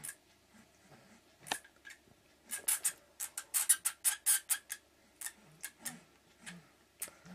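Irregular sharp scratching clicks: a few single ones at first, then a fast dense run of them for about two seconds near the middle, then scattered clicks again.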